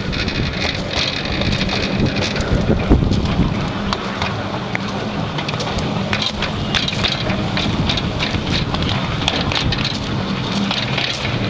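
Miniature railway train running along its track: a steady rumble of wheels on the rails with scattered clicks and clatter, likely as the wheels cross rail joints and points.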